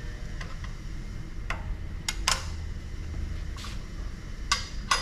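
Several sharp metal clinks and clanks as safety guards and fittings are handled and set onto a crankshaft balancing machine, the loudest near the end, over a steady low hum.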